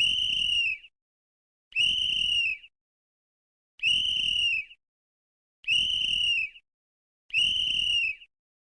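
Sports referee's whistle blown in five short blasts, each just under a second, about one every two seconds. Each blast is a shrill high tone that arches slightly in pitch and dips at the end.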